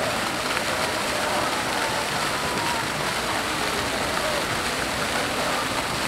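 Steady rush of running or falling water, with faint distant voices.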